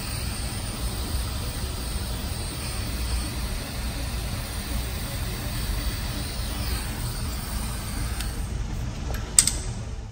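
Handheld heat gun blowing steadily as it shrinks heat-shrink tubing over butt-connected wires. A sharp click comes near the end, and then the blowing stops.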